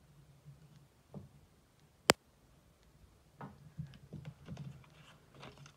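Paper being handled and pressed down onto card: soft rustling and small taps, with one sharp click about two seconds in that is the loudest sound.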